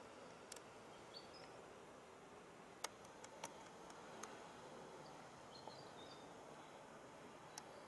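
Near silence: faint outdoor background with a few scattered sharp clicks and brief high bird chirps, once about a second in and again around six seconds.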